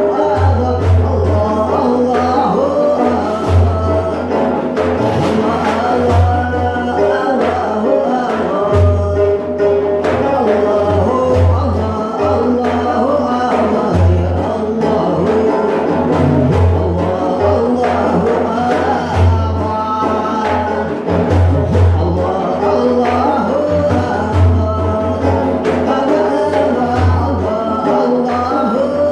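Live Sufi devotional music: a voice singing a flowing melody over the repeated low strokes of a large frame drum.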